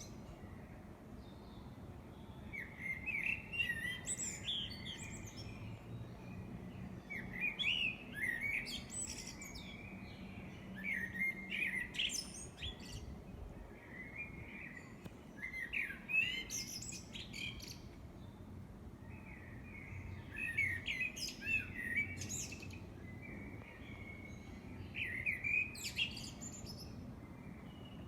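A songbird singing at night: a long run of varied phrases, each a quick jumble of different chirps and whistles lasting one to three seconds, with short pauses between them.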